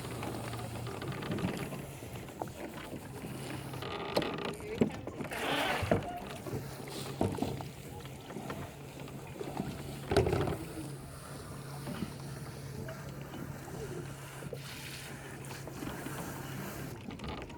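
A boat engine idling: a steady low hum that breaks off about four seconds in and comes back a couple of seconds later, with a few brief noises over it.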